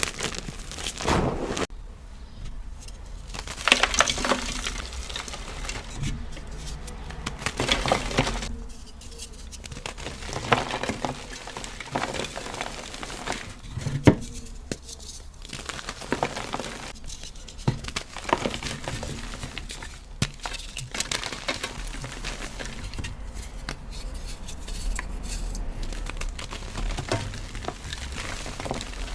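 BSN gym chalk cubes being crushed and crumbled, in irregular crunchy bursts with sharp cracks and a few brief pauses.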